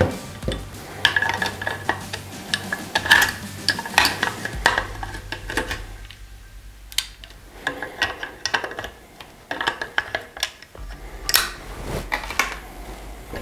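Metal clicks, clinks and light knocks as a bipod is handled and clamped onto the forend rail of a Sako TRG M10 rifle, several clicks with a brief metallic ring. The clicks come in irregular clusters, with a quieter pause about halfway through.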